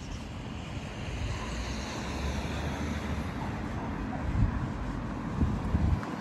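Wind buffeting the microphone: an uneven low rumble with a few sharper gusts in the second half.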